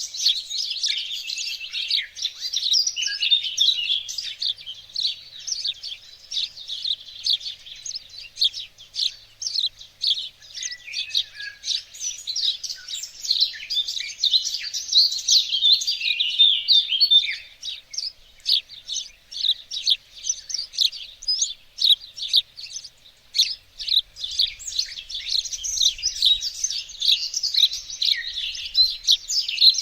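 Several small songbirds singing and chirping at once in a dense, continuous chorus of quick high twitters and trills.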